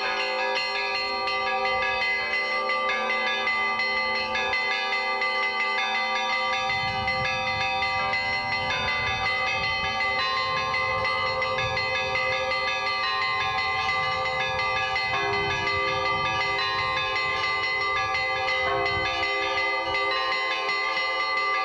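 Hand-rung bells of a Russian Orthodox belfry, their clappers worked by ropes: several bells ringing together in a continuous, overlapping chime.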